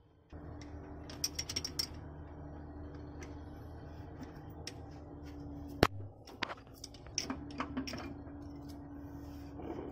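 Hand tools working on the truck's fittings: scattered metallic clicks and ratcheting, with a cluster of quick clicks early and one sharp click, the loudest, just before the middle. Under it runs a steady mechanical hum that starts suddenly just after the beginning.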